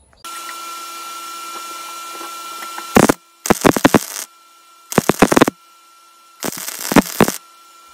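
Wire-feed (MIG/flux-core) welder tack-welding a steel angle-iron bracket: four separate bursts of crackling arc, the first very short and the others under a second each, over a steady electrical hum.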